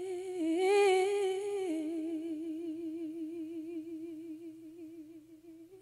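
A female singer holding one long final note with wide vibrato. It drops a little in pitch just under two seconds in, then fades away to nothing at the end of the song, with little or no backing.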